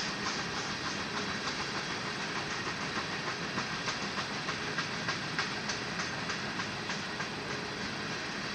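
Coal train cars rolling past at steady speed: a continuous rolling noise of steel wheels on rail, with short clicks about three times a second as the wheels pass over the rails.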